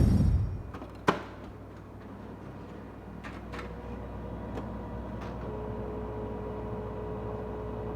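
HP laser printer mechanism running with a steady low hum, a sharp click about a second in, and a faint steady whine joining about halfway through. It opens on the fading tail of a loud whoosh.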